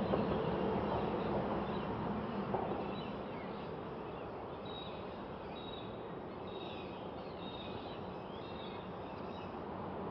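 Creek-side outdoor ambience: a steady soft hiss with faint, short high chirps of birds or insects scattered through it.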